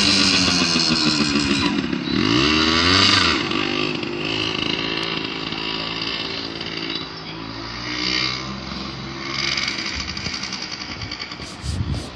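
Small yellow dirt bike's engine revving and pulling away, its pitch rising twice in the first few seconds, then running steadier and growing fainter as the bike rides off along the street.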